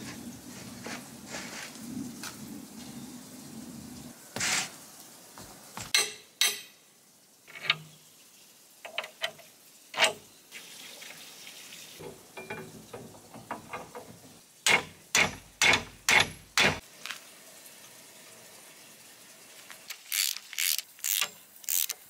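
Metal knocks and clanks as a steel sluice gate is fitted and bolted into its frame. A little past the middle comes a quick, even run of strikes, and near the end a burst of ratchet-like clicks as a nut beside the screw-spindle handwheel is tightened with a socket.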